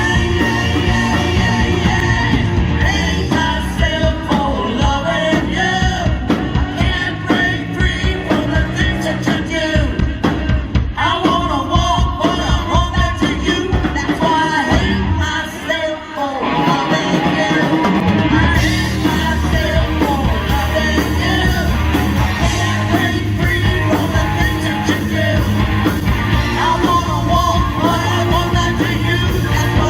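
Live rock band playing with a singer. The music drops away briefly about halfway through, then the full band comes back in.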